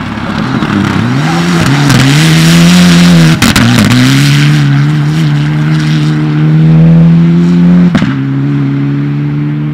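Mitsubishi Lancer Evolution rally car at full throttle on a snowy gravel stage, its engine revving up and dropping through several quick gear changes, with the hiss of tyres and spray on the loose surface. A sharp crack comes at a shift about a third of the way in, and another near the end.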